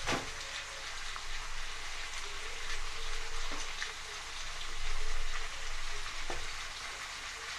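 Onion and carrot sizzling in oil in a frying pan, with a few soft knocks as chunks of potato are dropped in on top.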